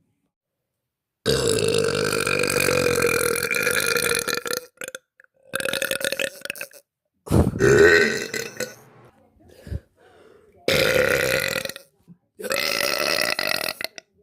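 A girl's long, drawn-out burps, one after another: about five separate burps of one to three seconds each, cut apart by sudden gaps of silence. The longest comes first and lasts about three seconds; the loudest falls near the middle.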